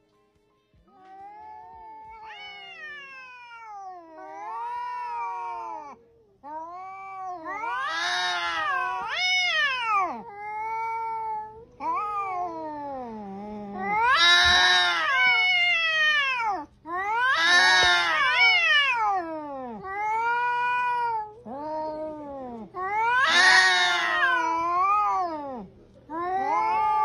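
Domestic cats yowling at each other in a hostile standoff: a long series of drawn-out, wavering calls, each rising and falling in pitch. The calls start faint and grow louder from about seven seconds in.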